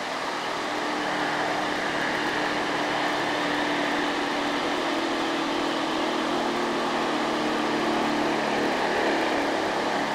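Diesel engines of Mitsubishi Canter dump trucks pulling under load up a long incline, a steady engine drone that eases slightly near the end, mixed with the noise of passing motorcycles and road traffic.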